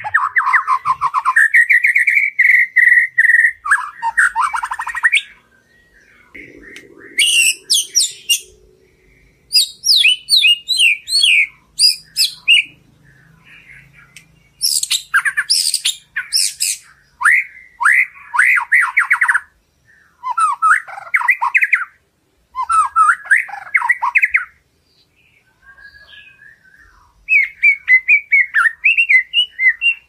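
White-rumped shama singing: varied phrases of clear whistles and rapid trills in about seven bursts of a few seconds each, with short pauses between them.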